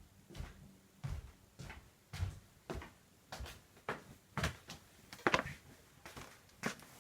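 Washing machine drum turning during the wash, with wet laundry and water thudding and swishing in a regular rhythm of nearly two beats a second.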